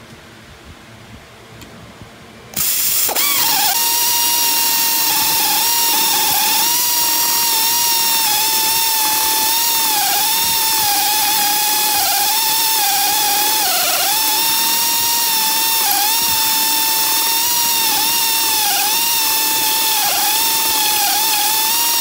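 Hand-held electrode tip dresser running between the copper caps of a spot-welding gun, dressing the electrode tips. Its motor starts about two and a half seconds in and whirs at a steady high pitch, which dips briefly now and then.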